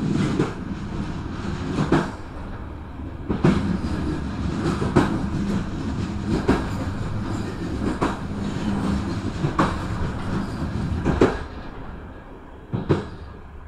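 Passenger train running along jointed track, heard from its open rear door: a steady rumble with the wheels clacking over the rail joints about every second and a half. It gets quieter near the end.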